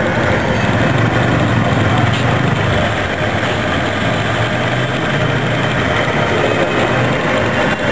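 Battery-powered DC motor belt-driving an industrial buttonhole sewing machine, running steadily as it stitches a buttonhole.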